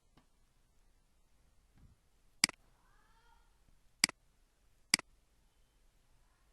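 Three sharp, short clicks: one about two and a half seconds in, then two more about a second apart, with quiet between them.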